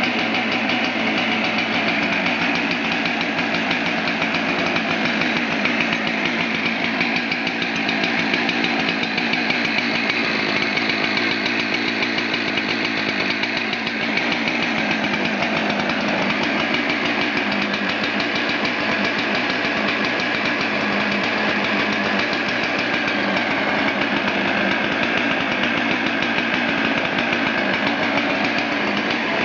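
Husqvarna 372 XPW chainsaw's two-stroke engine running steadily at an even speed throughout.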